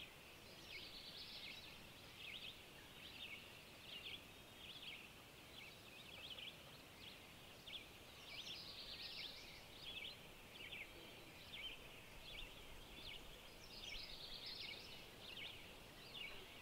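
Faint birdsong: a steady run of short high chirps from several birds, with denser trills about halfway through and again near the end.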